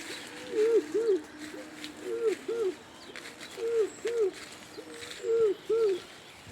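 An owl hooting: a soft low note, then two hollow hoots, repeated four times about every second and a half.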